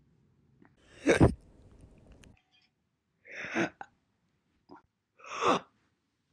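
A woman hiccuping in three single, separate hiccups, about a second, three and a half and five and a half seconds in, the first the loudest, with dead silence between them.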